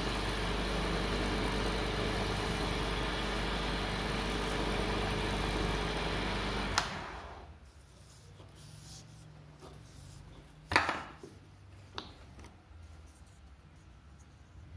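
Wood lathe running steadily while a pad is rubbed against the spinning wooden handle. About seven seconds in, the motor is switched off with a click and the lathe winds down. A loud knock and then a smaller click follow as the stopped workpiece is handled.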